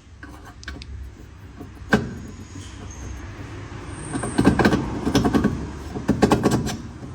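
Hand tools working on a car's rear wheel hub: a single sharp knock about two seconds in, then two runs of rapid clicking and rattling in the second half.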